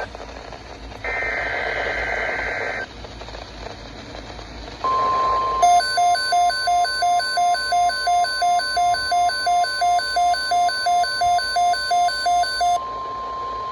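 NOAA Weather Radio alert: a short, raspy digital data burst of the SAME header, then the steady 1050 Hz weather alert tone. From about a second into the tone, a weather radio receiver's own alarm beeps loudly about three times a second over it for some seven seconds, then stops while the tone carries on. The tone marks the start of a broadcast severe thunderstorm watch.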